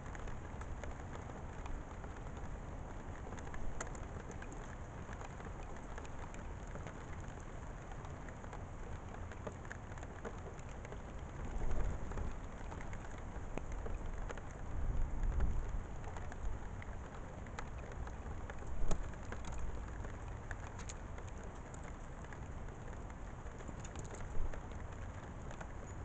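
Steady rain falling, with the sharp ticks of single drops striking close by, the loudest about 19 and 24 seconds in, and a few brief low rumbles.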